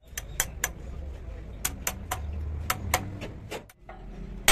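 Irregular sharp metal clicks and taps of hand tools on a truck's front steering knuckle and king pin, over a low steady rumble. Near the end comes one louder metallic strike that rings briefly.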